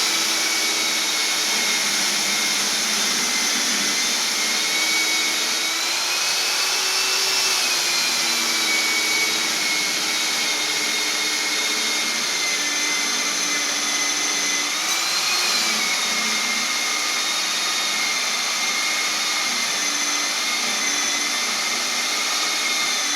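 Electric concrete cutting or core drilling machine running steadily under load. A high motor whine wavers in pitch, rising briefly a couple of times as the load on the bit or blade eases.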